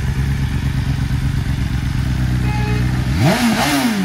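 BMW S 1000 RR's inline-four engine idling steadily, then a quick throttle blip about three seconds in that rises and falls in pitch.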